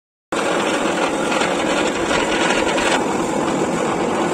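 Motor-driven cast-iron grinding mill running steadily, grinding soaked cashews into paste. The noise begins abruptly about a third of a second in and is a constant, even grinding.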